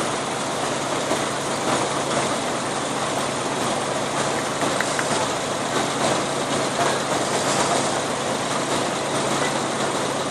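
Steady murmur of a large outdoor crowd, with no single voice standing out, over a low steady hum.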